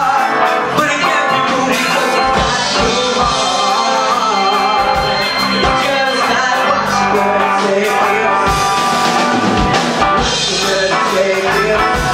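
Live rock band playing: a young male singer over electric bass, electric guitar and drum kit, with regular drum hits.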